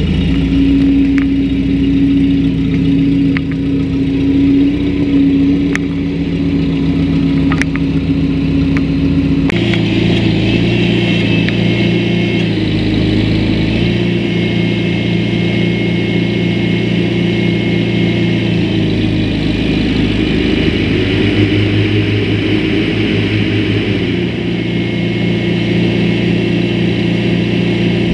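Farmall Super A tractor's small four-cylinder gasoline engine running steadily. About a third of the way in, the sound changes to a second recording with a higher steady whine over the engine note.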